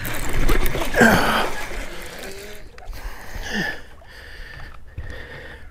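A hooked bass splashing and thrashing at the water's surface during the fight, loudest about a second in.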